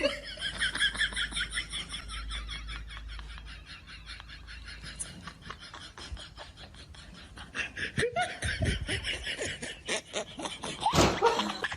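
High-pitched laughter in quick, rapid pulses, easing off midway and growing louder again near the end.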